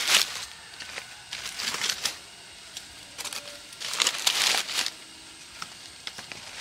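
Dry leaves crinkling and rustling as they are handled, in three bursts, with a few light knocks of dry split wood being laid on them.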